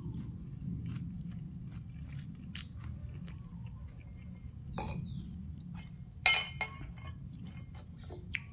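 Close chewing of a mouthful of rice noodles and fresh greens, with small wet clicks. About six seconds in, a sharp, ringing clink of a metal fork and spoon against the ceramic plate, followed by a lighter clink and, near the end, a short click.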